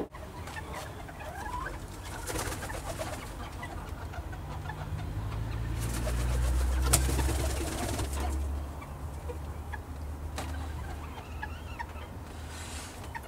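A small flock of Dutch bantam chickens making soft, low calls and short chirps. A low rumble swells and fades in the middle, with a sharp click at its loudest point.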